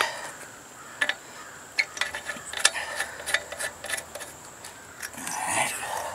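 Light metallic clicks and clinks of a spark plug and plug wrench being handled as the plug is threaded back into an old rusty engine's cylinder head, with a short louder rasp about five seconds in.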